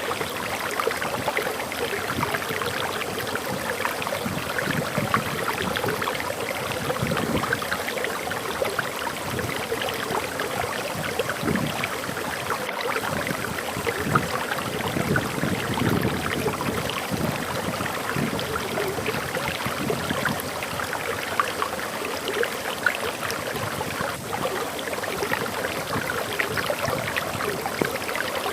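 Small forest waterfall: water splashing and rushing steadily over rocks.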